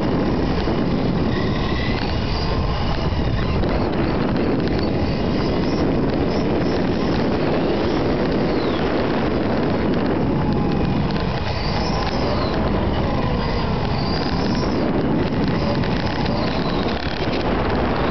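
Radio-controlled model car driving on asphalt, heard from a camera mounted on the car: steady rough rumble from the wheels and drivetrain, with short motor whines rising and falling in pitch as it speeds up and slows.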